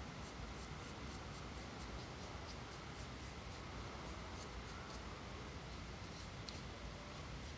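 Soft scratching of a bristle brush spreading shellac over a bare wooden saw handle in short, irregular strokes, over a low steady hum.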